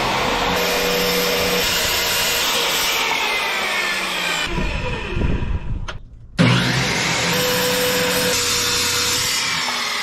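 Corded circular saw cutting half-inch sanded plywood. It runs through one cut, winds down about four and a half seconds in, then starts again with a jump in level about six and a half seconds in for a second cut.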